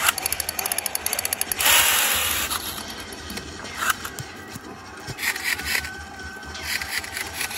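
Mock machine-gun fire from toy rifles: a fast rattle of shots, cut by a loud blast about one and a half seconds in that fades over about a second, then a few short bursts.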